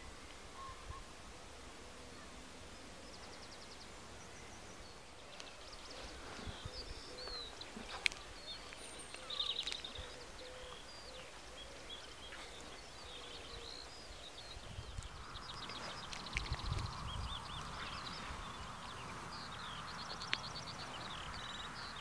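Small songbirds singing and calling, many short chirps and quick trills. About two-thirds of the way through a soft rushing wind comes up, with a few low gusts buffeting the microphone.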